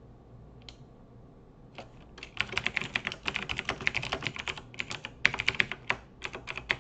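Computer keyboard typing: a single keystroke just under a second in, then quick runs of keystrokes from about two seconds on, broken by brief pauses.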